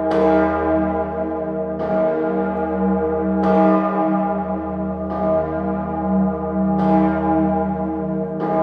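The Salvatorglocke, the great E-flat bell of Salzburg Cathedral, swinging alone and striking six times, about once every 1.7 seconds. A deep hum rings on between the strokes.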